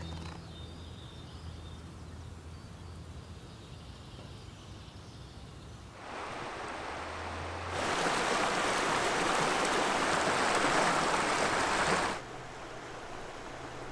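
Fast-flowing river rushing over rocks and around a fallen log. After about six seconds of faint background it swells into a loud, steady rush for about four seconds, then cuts off abruptly.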